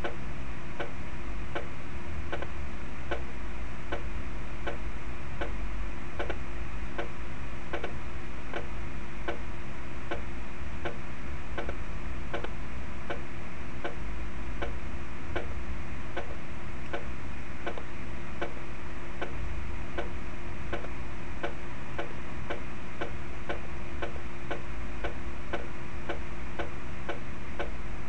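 Notation-software playback of a snare drum sticking exercise: single strokes, evenly spaced at a slow tempo like a ticking clock, over a steady hum.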